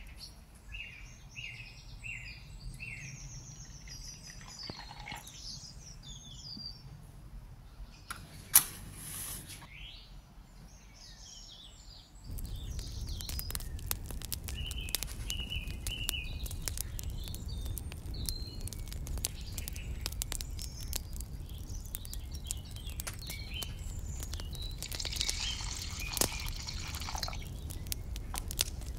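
Birds chirp throughout. About a third of the way in a match is struck and flares. From a few seconds later small wood sticks burning in a miniature clay stove crackle and pop over a steady low rumble, and near the end water is poured briefly into the small pot on the fire.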